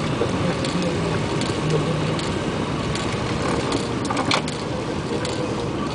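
Motorboat engine running steadily, mixed with wind and water noise, with one short sharp click about four seconds in.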